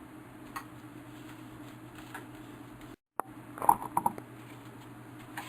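Camera gear being handled and packed into a padded camera backpack: a few light clicks and knocks, with a quick cluster of sharper knocks a little past halfway, over a steady low hum. The audio drops out completely for a moment just before the cluster.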